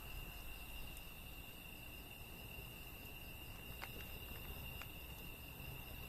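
Faint wood fire of split firewood burning, with a few isolated sharp crackles, over a continuous high steady insect trill.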